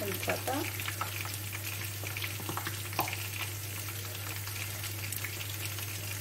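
Sliced onions sizzling and crackling in hot oil in a clay tajine, a steady sizzle with many small pops throughout, over a steady low hum.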